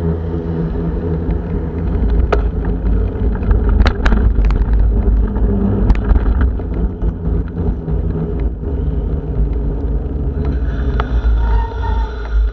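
Strong wind buffeting the microphone of a camera on a moving bicycle, a loud continuous low rumble, with a few sharp knocks about two, four and six seconds in.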